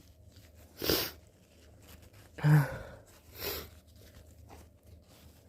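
A person with flu sneezing three short times in a row, the second sneeze the loudest.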